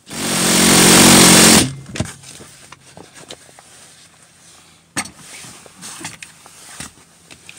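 Impact gun running for about a second and a half as it drives in a 14 mm seat-mounting bolt, then cutting off sharply. A few light clicks and knocks follow, the sharpest about five seconds in.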